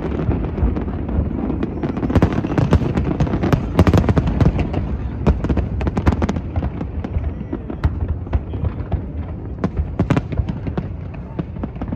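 Aerial fireworks bursting: a dense run of sharp bangs and crackles over a continuous low rumble, thinning out to fewer, more spaced reports in the second half.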